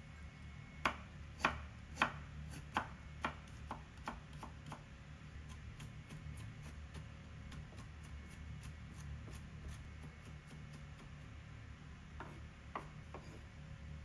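Kitchen knife chopping on a cutting board: about nine strikes in the first few seconds, growing lighter, then a pause and a few more taps near the end, over a steady low hum.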